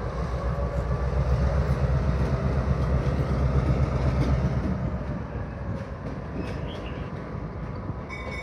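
EMD GP38 diesel-electric locomotive running its 16-cylinder two-stroke diesel as it rolls slowly in reverse, a low pulsing rumble that is loudest about four seconds in and eases off after about five seconds.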